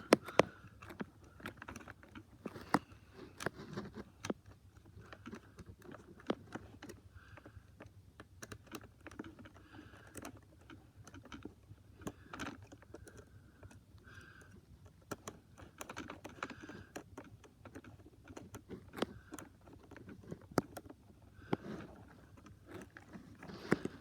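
Plastic toy train parts being taken apart by hand: irregular small clicks, taps and scrapes of plastic pieces and tools.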